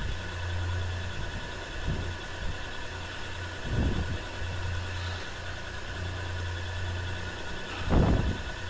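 A steady low hum like an engine idling in the background, with a soft thump about four seconds in and a louder one near the end.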